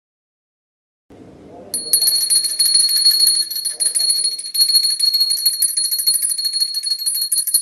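A puja hand bell rung rapidly and without pause: a bright, continuous ringing that starts about two seconds in.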